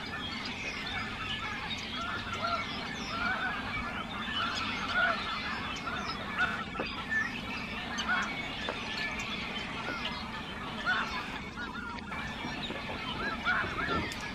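A large flock of geese calling, with many short honks overlapping in a continuous chorus.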